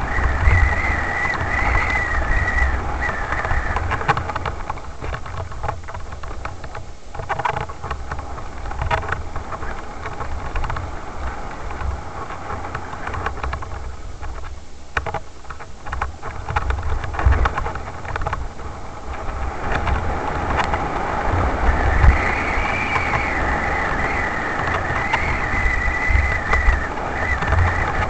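Riding down a rough forest trail: steady wind rumble on the microphone and the rattle of the ride over stones. A wavering high whine sounds for the first few seconds and again from about two-thirds of the way in.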